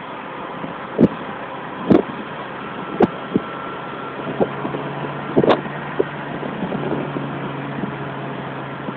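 Open-top car driving, with steady wind and road noise in the cabin and a few sharp knocks. A low, steady engine hum comes in about four seconds in.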